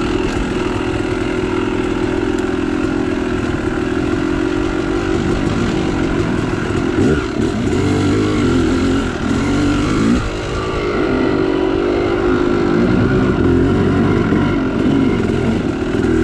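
Two-stroke Yamaha YZ dirt bike engine running under the rider, steady at first, then rising and falling in pitch with the throttle from about seven seconds in, with a brief drop near ten seconds.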